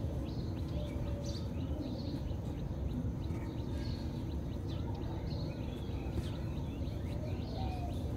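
Birds chirping in short, repeated calls over a steady low background noise.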